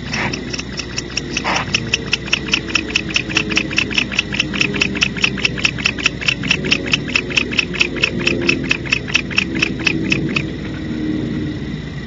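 Animal calls: a rapid, even series of short chirps, about seven a second, that stops about ten seconds in, over a steady hiss. Two short rasps sound in the first two seconds.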